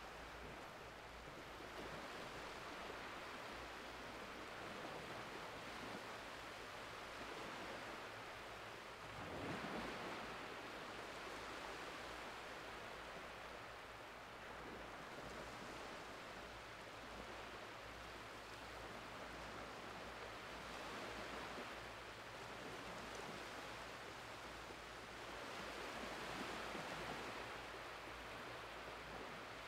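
Small, shallow waves of an incoming tide washing gently over flat wet sand: a soft, steady hiss of surf that swells every few seconds, loudest about ten seconds in.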